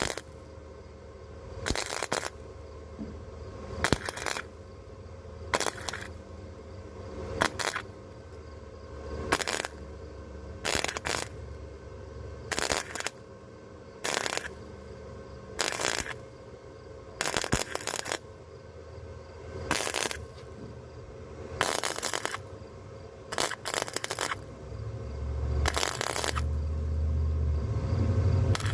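Harbor Freight 125 flux-core wire welder's arc crackling in short bursts, about one every one and a half to two seconds, as short welds are laid on truck-bed sheet metal. A low rumble comes in near the end.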